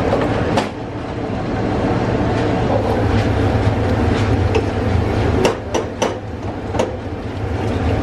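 Steel ladle knocking sharply against an aluminium stockpot of pork bone broth as it stirs, four knocks in quick succession a little past halfway. Under it is a steady low kitchen rumble.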